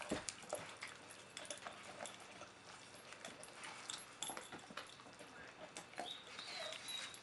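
Great Dane chewing and gnawing a raw sheep shoulder: irregular crunches and clicks of teeth on meat and bone. A brief high squeak is heard about six seconds in.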